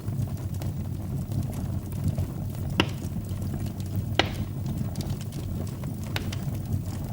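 Wood fire burning in a fireplace: a steady low rumble of flames with a few sharp crackling pops, the loudest near the middle.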